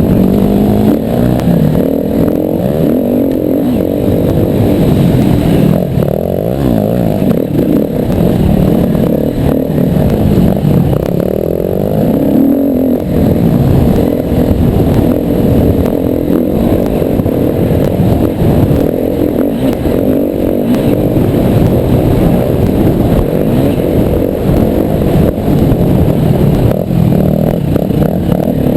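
Yamaha WR250R's single-cylinder four-stroke engine under way off-road, its note rising and falling again and again with the throttle and gear changes.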